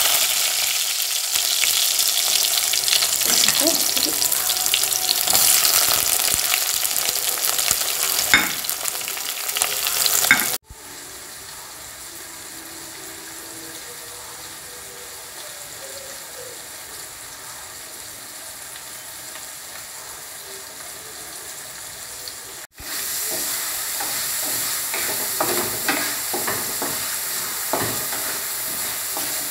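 Shallots, garlic, ginger and green chillies sizzling in hot oil in a clay pot, loud for the first ten seconds, then quieter. Near the end a wooden spatula stirs them, with short scraping strokes over the sizzle.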